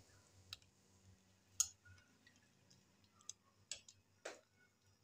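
Metal spoon stirring sliced onions into tamarind chutney in a glass bowl: a handful of faint, irregular clicks of the spoon against the glass, the sharpest about a second and a half in.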